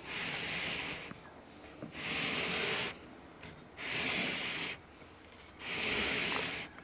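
A person breathing close to the microphone: four even breaths, each about a second long, roughly two seconds apart.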